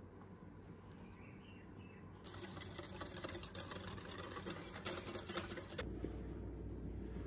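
Wire whisk beating kefir in a glass bowl: a fast clattering of the wires against the glass for about three and a half seconds, stopping suddenly.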